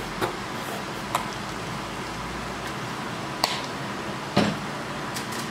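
Steady fan-like hiss with four short, light taps spread through it, the last the loudest: a spoon knocking as ketchup is spooned onto rice and pasta in the pan.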